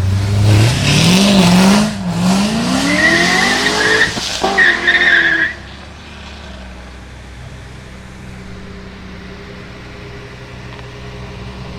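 A supercar engine revving and accelerating hard, its pitch climbing, dipping and climbing again, with tyre squeal in the middle of the pull. The sound drops away suddenly about halfway through, leaving a low steady background hum.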